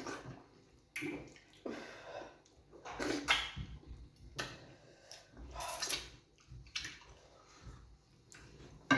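Wet mouth sounds of eating fufu with groundnut soup: irregular smacks and slurps, roughly one every second.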